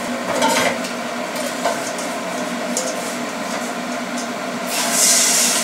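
Water boiling in a cast-iron pan with julienned carrots blanching in it, over a steady hum with a few small clicks. A louder hiss comes in near the end.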